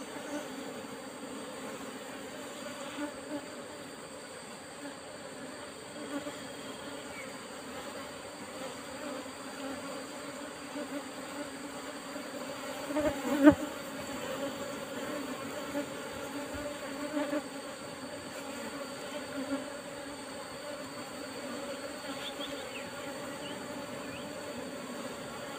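Steady buzzing hum of a swarm of Asian honey bees (Apis cerana) around their opened nest. A single sharp knock about halfway through.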